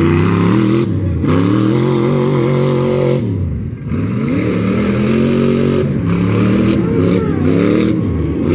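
Modified tuff truck's engine revving hard, its pitch rising and falling as the throttle is worked. The revs drop sharply a little past three seconds in, then climb back up.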